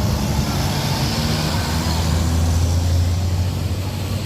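Diesel engine of a passing bus, a steady low drone over road and traffic noise that swells through the middle and eases off near the end.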